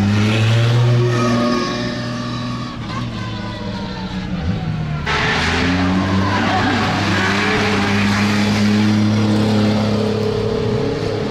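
Drift cars' engines running with a steady note, along with tyre squeal and skidding noise. The sound changes abruptly about five seconds in.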